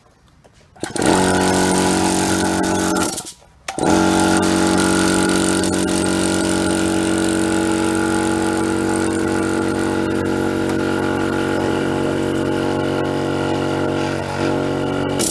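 Small Chinese oil-lubricated air compressor's electric motor and pump running with a steady hum. It starts about a second in, stops for a moment, then restarts and runs evenly. The knock is cured now that the capacitor, which had broken loose and was striking the cooling fan, has been refitted.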